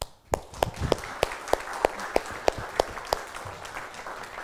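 Congregation applauding. One person's claps stand out, loud and even at about three a second, for the first three seconds, over the softer clapping of the room.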